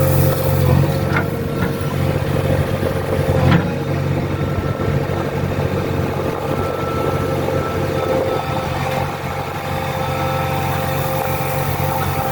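JCB 3DX backhoe loader's diesel engine running steadily while working, heard from inside the cab, with a steady higher tone over it that drops away about eight seconds in. A single clunk sounds about three and a half seconds in.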